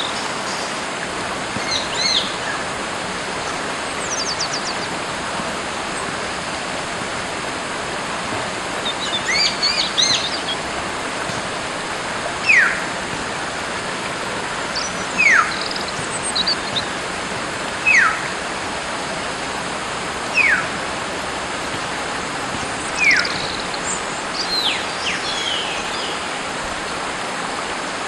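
Wild birds calling over the steady rush of a stream: a clear downward-sliding whistle repeated five times, about every two and a half seconds, with scattered shorter high chirps and a brief trill in between.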